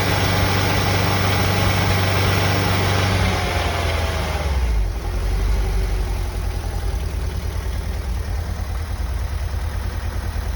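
1990 Volkswagen Vanagon's water-cooled flat-four engine running fast, then dropping in speed about four seconds in and settling to a lower idle with a regular pulsing beat. It is run from a cold start, which brings on a loud knock that lessens as the engine warms.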